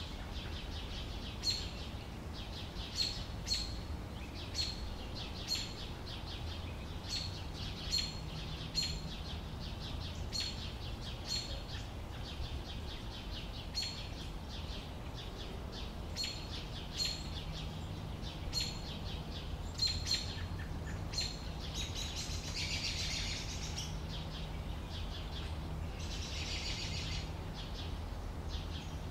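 Small birds chirping: short, sharp chirps every second or so, with two brief spells of busier twittering near the end. A faint low steady hum runs underneath.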